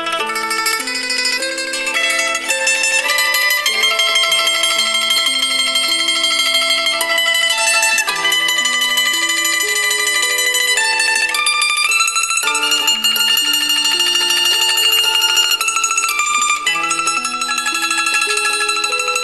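Background music: a plucked-string melody, like mandolin or guitar, with held notes changing every half-second or so.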